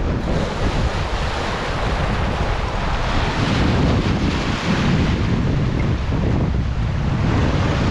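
Sea waves breaking and washing in foam over shore rocks, with wind buffeting the microphone as a low rumble.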